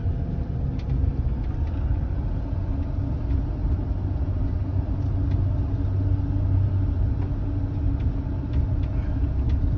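Mercedes diesel RV driving, heard from inside the cab: a steady low engine rumble mixed with road noise.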